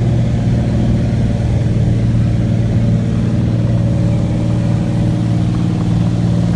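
Light ski plane's piston engine and propeller running with a steady drone, heard from inside the cabin as the plane slides over glacier snow after landing.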